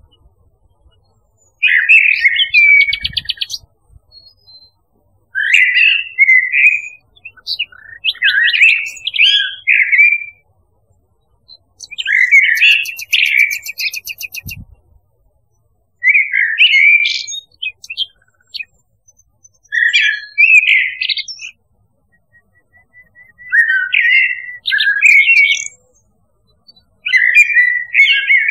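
Songbird song from a nightingale-and-blackbird recording: about eight clear warbled phrases of one to two seconds each, with short pauses between them. Some phrases end in a rapid, high twitter.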